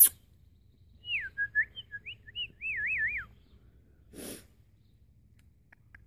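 A person whistling a short warbling phrase, one clear tone sliding up and down for about two seconds, followed by a brief breathy rustle about four seconds in.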